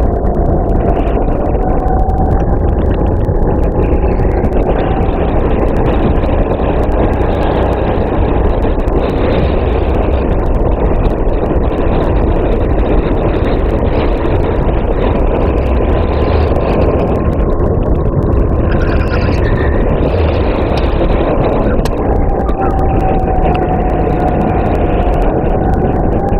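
Racing kart engine running hard, heard through the kart's onboard camera under a heavy, steady low rumble. The engine note falls and rises a little a couple of times as it comes off and back onto the throttle.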